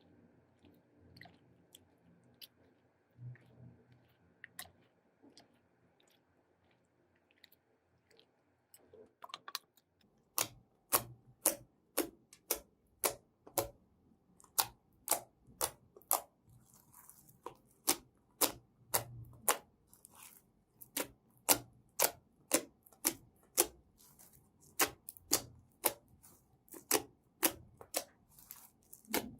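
Slime being squeezed and kneaded, with trapped air popping in sharp clicks. A few faint clicks come first; from about a third of the way in the clicks turn loud and regular, about two a second.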